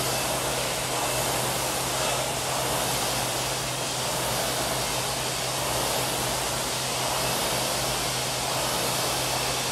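Rowing machine's fan flywheel whooshing steadily as it is rowed, over a constant low hum.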